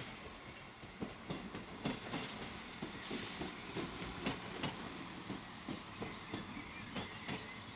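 Passenger railcar rolling slowly over yard points, its wheels giving a string of irregular clicks and clunks at the rail joints, with a short hiss of air about three seconds in.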